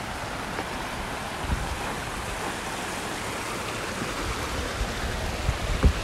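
Steady rushing of water spilling over stepped concrete check dams, with a few low thumps of wind buffeting the microphone, the strongest near the end.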